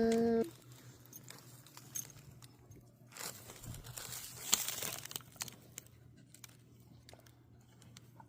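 Paper napkins crinkling and rustling as they are handled, in a few short scattered bursts.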